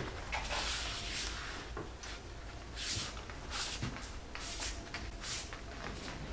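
Hand rubbing and pressing a drywall corner bead into wet joint compound, a series of short swishing strokes as the bead is smoothed down and the mud pushed out.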